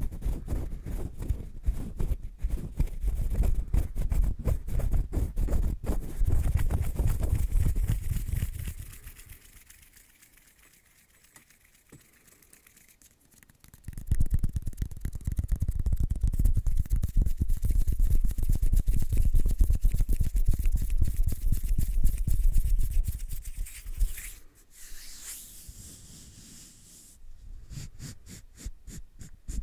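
Brushing directly against the microphone: dense, rapid scratchy strokes with a heavy low rumble from the contact. The brushing stops for about five seconds partway through, resumes, then gives way to a few sparse light taps and rubs near the end.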